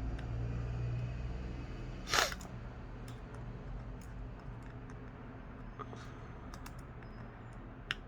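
Small precision repair tools clicking and ticking against the screws and metal shield inside an iPhone, with one louder sharp click-scrape about two seconds in, over a steady low hum.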